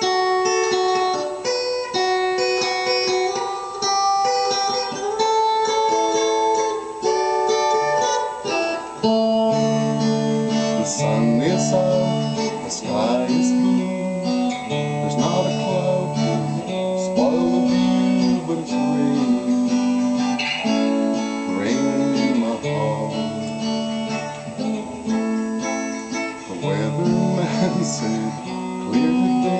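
Electric guitar and a slow song: an instrumental opening, then a man's singing voice comes in about ten seconds in.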